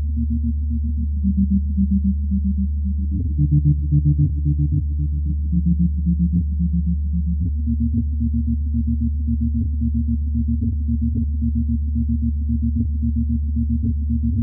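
Electronic synthesizer music, all low in pitch: a steady bass drone under a repeating pattern of short pulsed notes.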